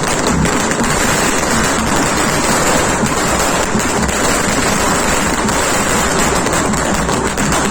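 A long string of firecrackers going off in a dense, unbroken crackle, the bangs packed so close that they blur into one loud, steady rattle.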